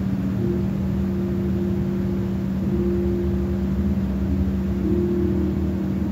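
A steady low hum, with a higher tone that fades in and out every couple of seconds above it.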